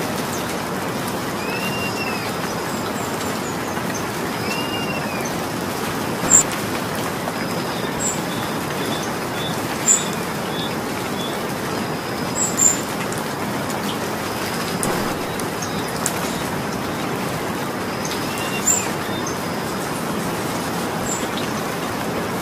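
Steady rain falling, with a few louder single drips or taps scattered through. A bird gives a short, arching call three times in the first five seconds.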